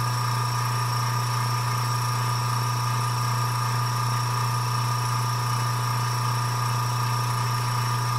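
PointZero 1/5 HP airbrush compressor with a 3-litre tank running steadily: a constant, loud motor hum with thin steady higher tones above it, about 92 dBA six inches from the unit.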